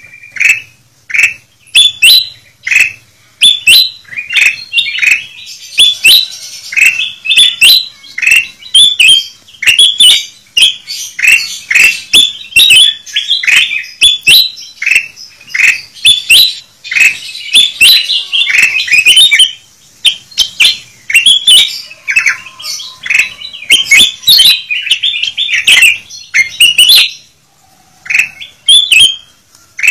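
Ruby-throated bulbuls (kutilang emas) calling busily in a bird-lure recording: a loud, rapid stream of short, sharp chirps from several birds, briefly thinning out twice.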